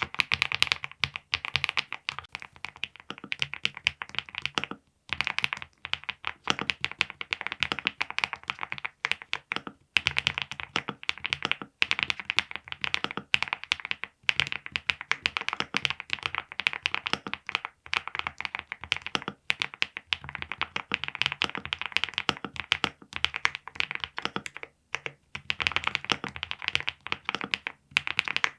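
Fast, continuous typing on a mechanical keyboard with linear switches: rapid key clacks with brief pauses every few seconds.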